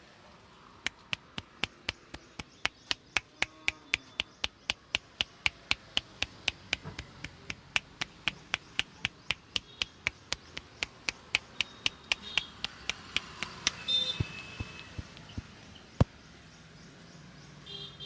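A barber's hands tapping rhythmically during a head massage: an even run of sharp taps, about four a second, that stops about fifteen seconds in, followed by one louder single click.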